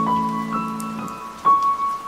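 Slow, soft music notes, struck one at a time and left to ring, over a steady rain recording; a new note comes in about half a second in, another about a second in, and a stronger one about a second and a half in.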